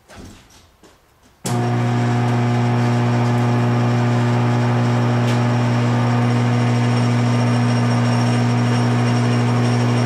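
Locked-rotor air-conditioner compressor motor switched onto mains power through its run capacitor, giving a loud, steady electrical hum that starts abruptly about a second and a half in. The stalled motor draws heavy locked-rotor current, around 115–120 amps, and its windings are overheating and smoking.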